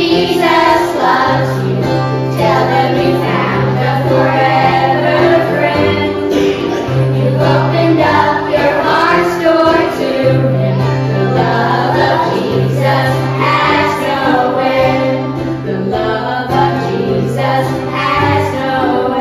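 A group of children and adults singing a hymn together, accompanied by acoustic guitar.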